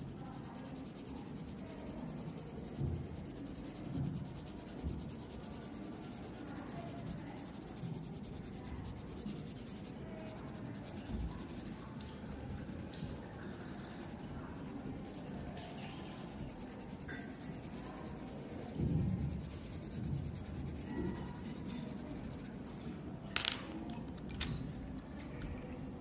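Green coloured pencil scratching faintly on paper as a leaf is shaded in, with a few soft low thumps and one sharp click about 23 seconds in.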